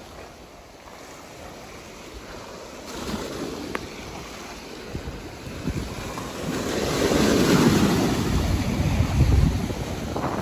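Ocean surf, with waves breaking and washing up the beach, building to its loudest from about six seconds in. Wind buffets the microphone.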